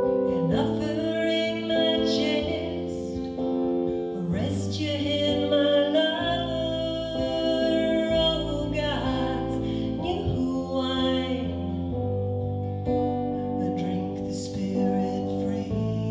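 A woman singing a slow folk song, holding long notes, over keyboard chords and a strummed acoustic guitar.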